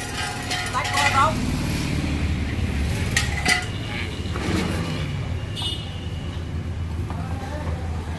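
Hydraulic floor jack being pumped by its long handle to lift an engine and gearbox assembly, with a few sharp metallic clicks, over a steady low hum.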